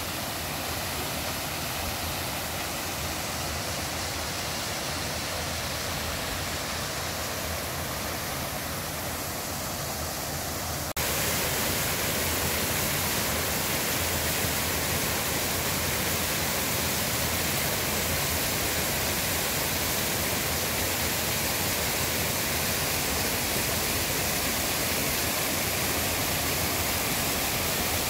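Steady rushing of a small waterfall splashing down a rock face onto stones. It becomes suddenly louder about eleven seconds in, then holds steady.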